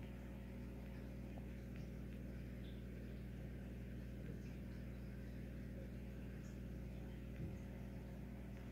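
Faint, steady low electrical hum of running aquarium pump equipment, with a few faint ticks and a soft bump about seven and a half seconds in.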